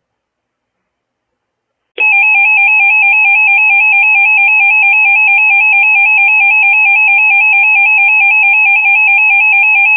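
Weather alert radio's electronic alarm going off about two seconds in: a loud, rapid warbling beep that holds steady without a break, signalling an incoming weather warning.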